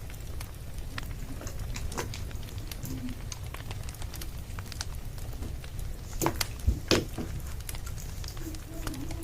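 Wood fire crackling, with irregular small pops over a steady low rumble and a few louder pops about six to seven seconds in.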